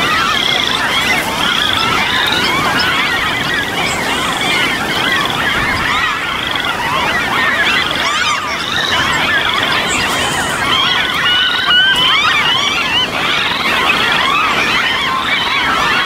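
A dense chorus of many birds and frogs calling at once, continuous and loud, with short rising trills repeating every second or so above a tangle of chirps.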